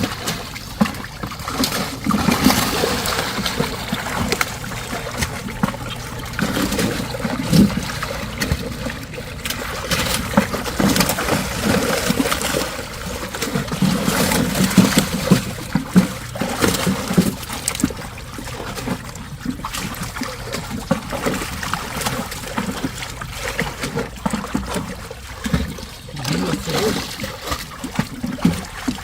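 Water splashing and trickling in many small, irregular splashes, with occasional knocks.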